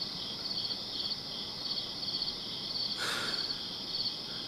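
Crickets chirping steadily, a high pulsed trill repeating about twice a second. A brief breathy sound, like a sob, comes about three seconds in.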